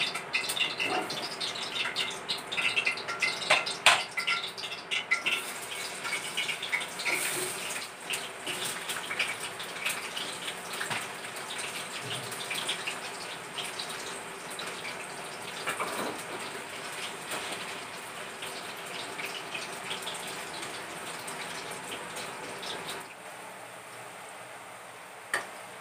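Potato pieces frying in hot oil in a wok: a steady sizzle full of crackles, busiest in the first several seconds and thinning out later, with a few sharp clicks.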